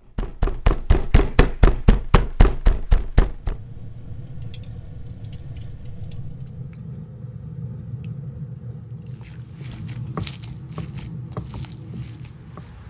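A fast, even run of loud heavy knocks, about four a second, stopping about three and a half seconds in, followed by a quieter steady low rumble. From about nine seconds in come wet squelching and crackling as hands knead raw minced lamb with onion and herbs.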